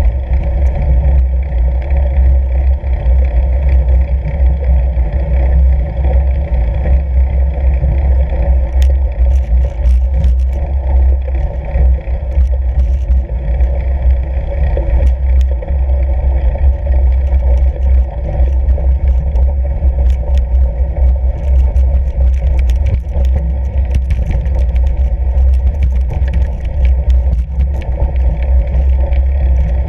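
Riding noise from a fat bike rolling over packed snow: a steady low rumble of wind and tyre noise on the bike-mounted camera, with scattered small clicks.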